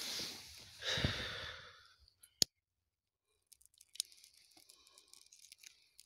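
Rustling and crunching of snow and dry twigs as sticks are handled, with one sharp crack about two and a half seconds in and faint scattered crackles after a short pause.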